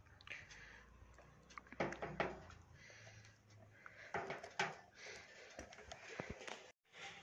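Rubber-jacketed power cord of an electric heater being uncoiled by hand: soft rustling and rubbing with scattered light clicks and taps as the cord knocks against the heater's plastic base.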